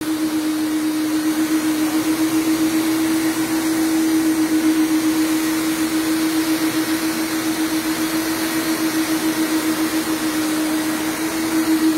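Single-disc rotary floor machines scrubbing carpet, their motors and spinning brushes giving a steady hum that pulses slightly, about four or five times a second.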